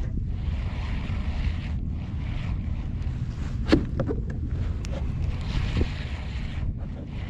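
Wind buffeting the microphone as a steady low rumble. About three and a half seconds in there is one sharp knock with a brief ring, followed by a few lighter clicks.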